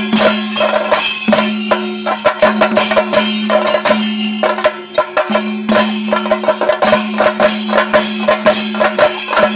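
Traditional festival percussion: drums and jingling, clanking strikes played in a fast, dense rhythm over a steady held drone note.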